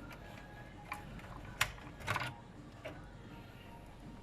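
A few sharp clicks and taps from memory modules and computer parts being handled. About four clicks in all, the loudest a little past two seconds in.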